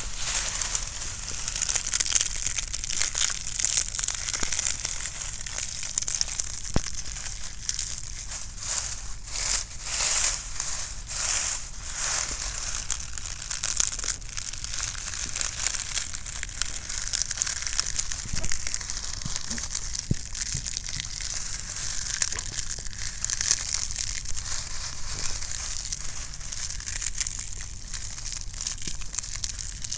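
Dry leaves crunching and crackling without a break in irregular clusters, the crunches coming thicker in the first half.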